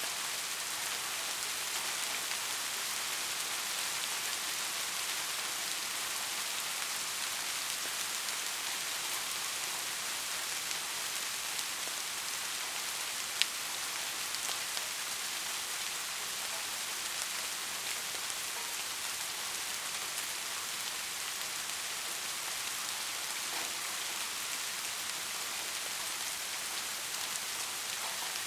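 Steady rain falling as a dense, even hiss, with one sharp click, like a single heavy drop, about halfway through.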